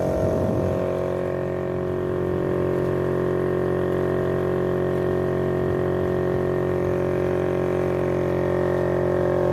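Small engine of a plastic-drum outrigger boat running steadily at constant speed while under way.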